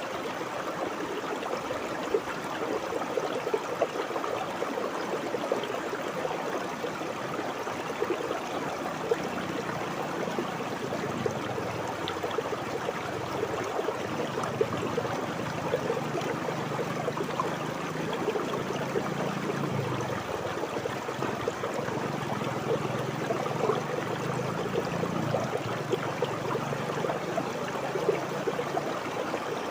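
River water flowing steadily over a shallow bed: a continuous babbling trickle with small splashy ticks. A faint low rumble joins about a third of the way in.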